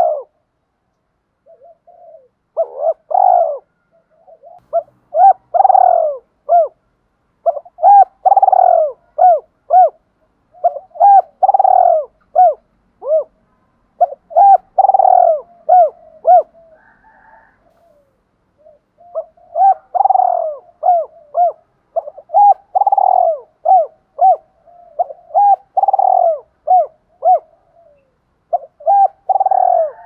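Spotted dove cooing over and over: each phrase a loud drawn coo followed by several short arched notes, repeating about every three seconds, with one longer pause past the middle. This is the challenge coo of a decoy dove, meant to provoke rival doves into cooing back and fighting.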